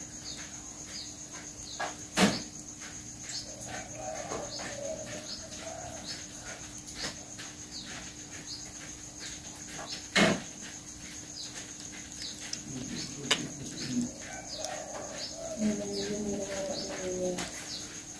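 Short high chirps repeat steadily about twice a second over a faint steady high whine and a low hum. Two sharp knocks stand out, about two seconds in and again about ten seconds in. Low pitched calls are heard briefly twice, the second time near the end.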